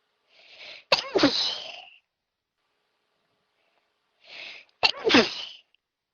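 A person sneezing twice, about four seconds apart: each time a quick breathy intake, then a sudden loud sneeze with the voice dropping in pitch.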